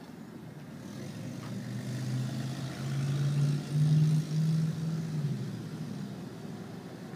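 A motor vehicle's engine drone passing by, swelling to its loudest about four seconds in and fading away, its pitch stepping slightly upward as it goes.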